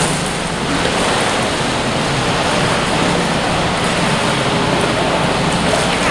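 Steady rushing of churned pool water, with the splashing of a Great Dane paddling in a life jacket.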